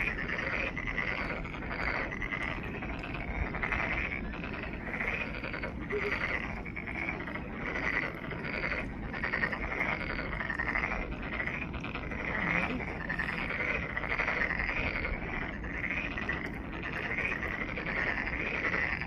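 A chorus of pond frogs calling continuously, many overlapping short croaks repeating without a break, with their pitch high, around a shrill trill.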